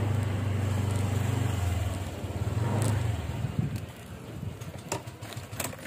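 Small motorcycle engine running steadily as the bike rolls along, then fading out about three and a half seconds in as it comes to a stop; a few light clicks follow.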